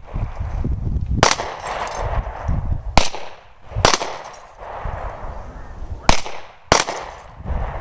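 Five sharp gunshots at uneven intervals, from firearms fired at a target iMac, with a low rumble between the shots.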